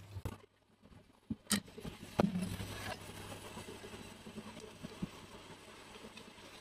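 Two sharp knocks about two-thirds of a second apart, with a few lighter taps, over a steady low hum: hand work on a part in a repair shop.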